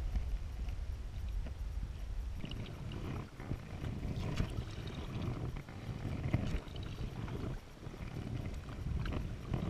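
Paddle strokes in calm water, a short splash and drip about every two seconds, over a low rumble.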